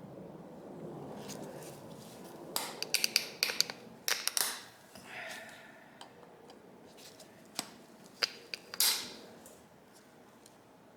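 Small carburetor parts and hand tools clicking and scraping as a 1985 Yamaha VMAX carburetor is taken apart by hand. A cluster of sharp clicks comes a couple of seconds in, then a few single clicks and a short scrape near the end.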